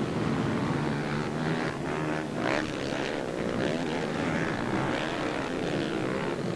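Several motocross motorcycle engines revving around the track. Their pitch rises and falls as the riders open and close the throttle, with a quick rising rev about two seconds in.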